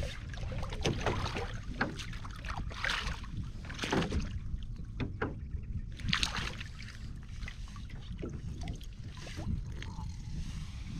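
Irregular splashes and swishes of water, a few of them about a second apart, the loudest about four and six seconds in, over a steady low rumble of wind on the microphone.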